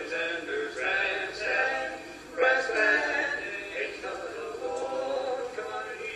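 Barbershop quartet of men singing a cappella in close four-part harmony, holding chords that change every second or so.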